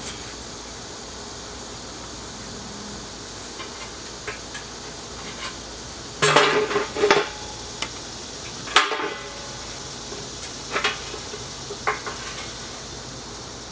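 Scattered metal clanks and knocks from metal parts being handled. A quick cluster of loud clanks comes about six seconds in and a single sharp one near nine seconds, with a few lighter knocks after, over a steady faint background hiss.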